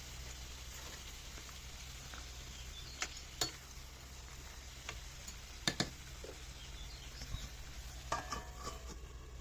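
A utensil stirring food in a cooking pot, with a few sharp metal clicks against the pan: two about three seconds in and a quick pair near six seconds. A steady low hum runs underneath.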